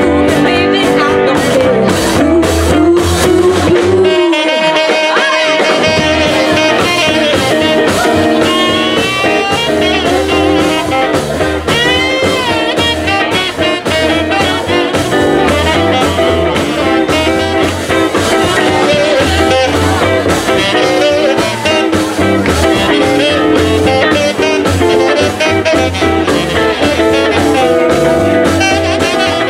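Live jazz-blues band playing with upright bass, drums, electric guitar and saxophone. The bass and low end drop out briefly about four seconds in, then the groove resumes.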